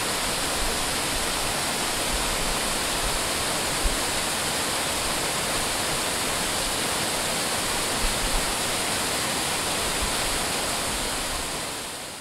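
Waterfall pouring: a steady, dense rush of falling water that fades down near the end.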